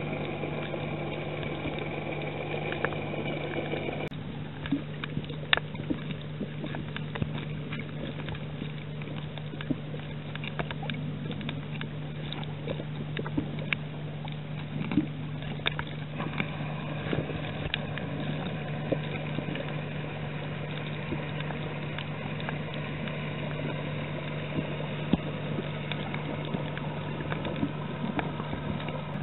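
Underwater ambience over a coral reef: a steady low hum with scattered faint clicks and crackles. A louder sound with several tones cuts off suddenly about four seconds in.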